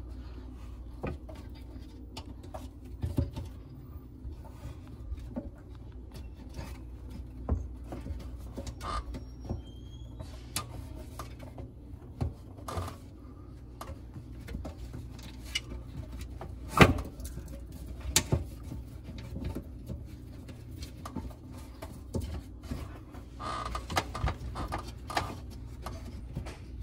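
Irregular clicks, taps and scrapes of hands fitting a metal magnetic guard collar around the top of a garbage disposal and working its clasp button to snap it together. A steady low hum runs beneath, and the sharpest click comes about 17 seconds in.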